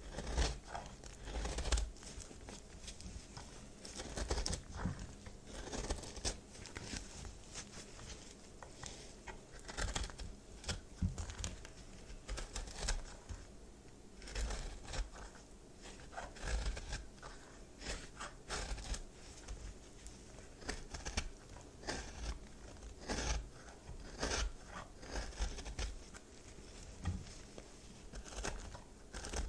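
Brittle, microwave-puffed baby soap being cut and crushed: irregular dry crunching and crackling, stroke after stroke.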